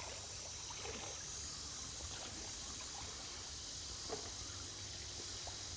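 Creek water trickling, faint and steady, with a few small clicks.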